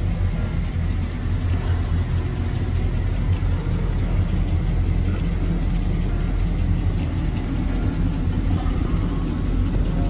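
Twin MerCruiser 350 MAG V8 stern-drive engines idling in gear at dead-slow speed, a steady low rumble.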